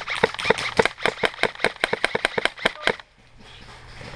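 Airsoft pistol shots fired in a rapid string, about six or seven a second, that stop abruptly about three seconds in.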